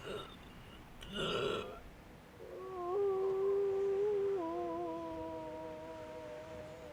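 Two soft breaths, then a sustained low musical drone: a held note with a second steady note alongside it. The held note steps down in pitch about two seconds after it begins and slowly fades.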